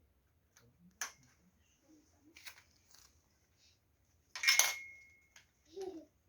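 Small metal parts clicking and clinking as they are handled. The loudest is a sharp metallic clink about four and a half seconds in that rings on briefly.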